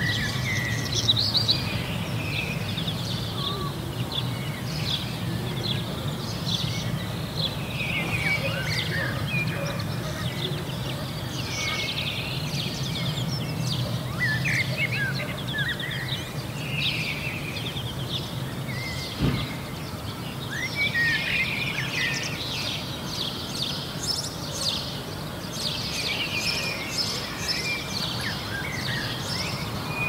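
A chorus of small songbirds chirping and twittering over a steady low rumble, with one sharp click about two-thirds of the way through.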